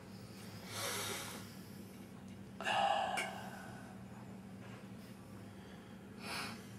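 A man's heavy breathing: three sharp breaths, about a second in, louder near three seconds, and again near the end, over a faint steady low hum.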